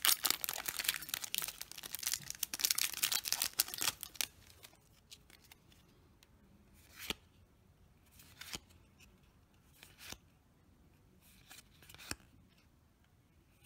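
Foil Yu-Gi-Oh booster pack being torn and crinkled open for about the first four seconds. Then a few short, sharp flicks as the trading cards are slid and flipped through one by one.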